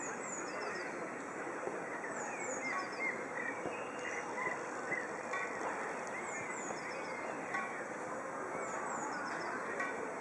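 Outdoor park ambience: birds chirping in short repeated calls every couple of seconds over a steady background murmur.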